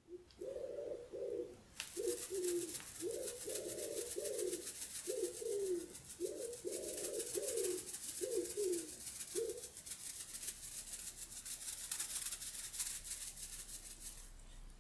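A run of soft, low, dove-like cooing notes, each gliding briefly, repeating for the first ten seconds. Under them, a grainy rustling hiss made of many tiny ticks starts about two seconds in and fades near the end.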